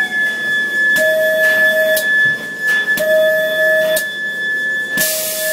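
Electronic sound effects from a ghost train's soundtrack: a steady high tone under a lower tone that sounds in one-second pulses, on and off in turn, with a sharp click about once a second.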